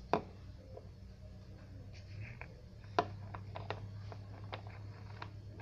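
Small plastic poster paint pot being handled and its lid worked open: a few light, separate clicks and taps spread over several seconds, over a steady low hum.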